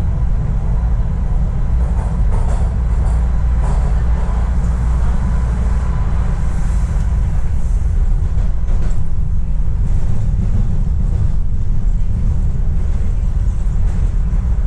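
Subway train running between stations, heard from inside the car: a steady, loud low rumble of wheels on rail and running gear.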